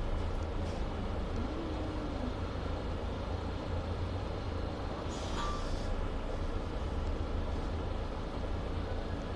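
Mercedes city bus running: a steady low engine and road rumble, with a brief hiss about halfway through.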